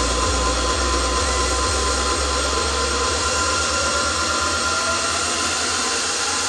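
Loud electronic dance music over a PA system in a build-up: a steady hiss over a bass drum roll that speeds up and then fades out near the end.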